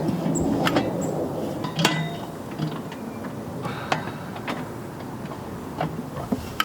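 Metal parts and tools clinking and tapping in irregular sharp clicks, about one or two a second, as an exhaust downpipe and its nuts are handled and fitted.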